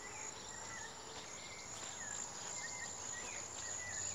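Insects in tall grass making a steady high-pitched drone, with short chirps several times over it.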